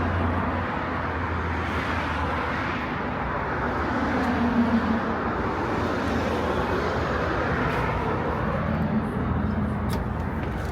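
Steady road-vehicle noise: a continuous rush with a low hum underneath, a little louder about halfway through.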